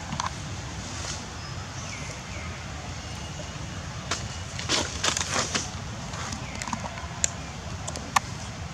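Outdoor background with a steady low rumble and a few short chirps, a brief burst of rustling about five seconds in, and two sharp clicks near the end.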